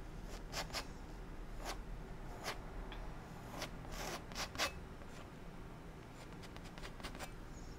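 Palette knife strokes on a stretched oil-painting canvas: a series of short, dry scrapes in bunches as the knife lays paint onto the mountain peak.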